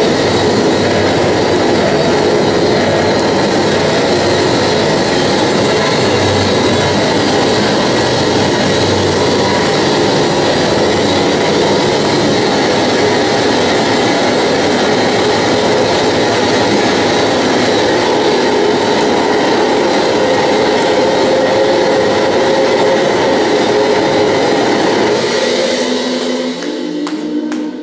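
Harsh power-electronics noise played live through a PA: a loud, dense, steady wall of distorted noise with a few faint held tones in it, which falls away about a second before the end.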